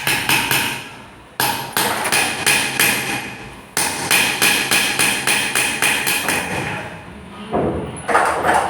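Small hammer striking metal on a steel block in quick, even, ringing blows, about four a second, in three runs with short breaks. A short louder noisy sound comes near the end.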